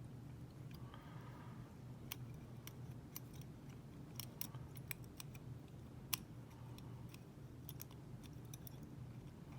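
Faint metallic clicks and scrapes of a lock pick working the levers of a WEP Secure five-lever padlock, with one sharper click about six seconds in, over a low steady hum.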